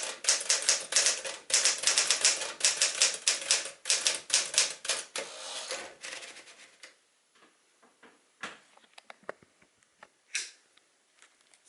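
1965 Penncrest Caravelle (Smith-Corona-built) manual portable typewriter being typed on quickly: a fast, even run of type-bar strikes for about five seconds, then a short sliding sound and a few scattered single clicks and knocks as the typing stops.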